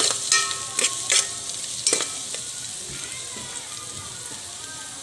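Sliced onions and garlic sizzling as they sauté in an aluminium pot, with a utensil knocking and scraping against the pot as they are stirred, each knock leaving the pot ringing briefly. The stirring stops about two seconds in and the sizzle carries on, slowly getting quieter.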